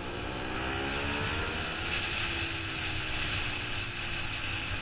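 A 2008 Suzuki SV650's V-twin engine running hard under race throttle. The revs climb over the first couple of seconds and then hold steady, under constant wind rush on the onboard camera.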